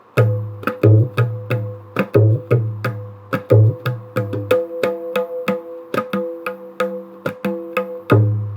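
A new tabla pair playing a Banarsi theka: quick sharp strokes on the treble drum (dayan), each ringing at the same tuned pitch, over deep booming strokes on the bass drum (bayan). The bass strokes drop away for a few seconds in the middle and come back near the end.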